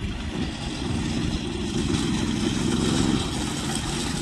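An engine running at a steady speed, a little louder in the middle.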